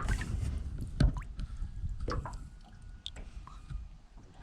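Water dripping and splashing in a few short, scattered sounds, over a low rumble.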